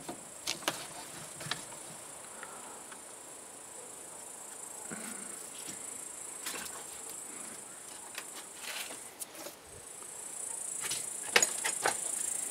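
A steady high chirring of insects, growing louder near the end, with a few light clicks and knocks of handling scattered through it.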